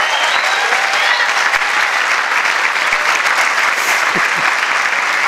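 Audience applauding steadily, with a brief cheer near the start.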